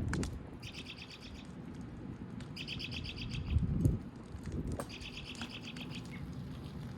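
A songbird singing three short, rapid trills of evenly repeated high notes, a second or two apart, over a steady low rumble.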